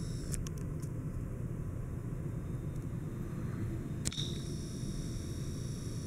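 Encon Monarch ceiling fan running steadily, a low even hum and rush of air from its spinning blades. A few small clicks come about half a second in, and a sharper click about four seconds in.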